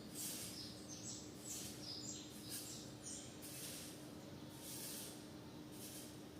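Faint high bird chirps, a few short notes in the first two seconds, over repeated bursts of high hiss and a steady low hum.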